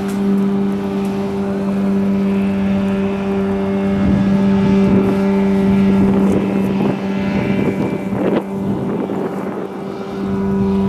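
A boat's motor running at a steady pitch, with rougher, irregular noise laid over it through the middle of the stretch.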